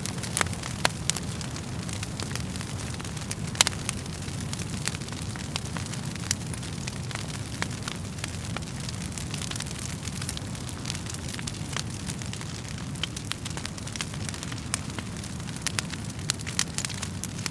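Wood fire crackling: irregular sharp pops and snaps over a steady low rush of burning. One louder pop comes about three and a half seconds in.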